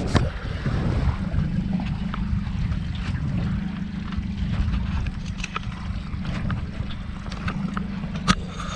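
Wind buffeting the microphone on a small boat at sea, a steady heavy low rumble, with scattered light clicks and taps and a sharp knock right at the start.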